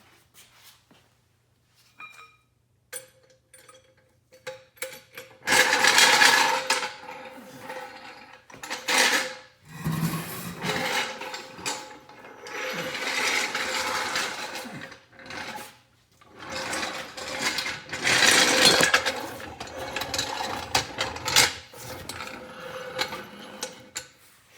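Metal car parts being worked with hand tools during a front drive-axle job: a few faint clicks, then from about five seconds in long stretches of loud scraping and rubbing with short pauses between them.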